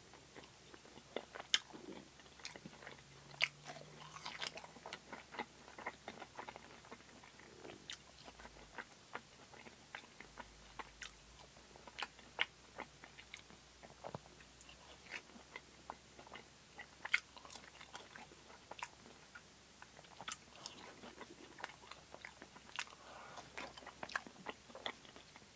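A person chewing and biting fried crinkle-cut fries dipped in ketchup, picked up close: many short, irregular crunches and mouth clicks.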